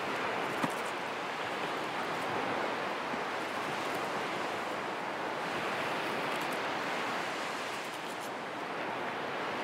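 Steady wash of ocean surf breaking on a beach, with a single sharp click about half a second in.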